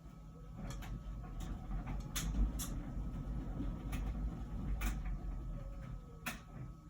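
LG Wash Tower drum turning with laundry tumbling: a low rumble broken by several sharp knocks, running for about six seconds and then stopping as the machine's steady background hum carries on.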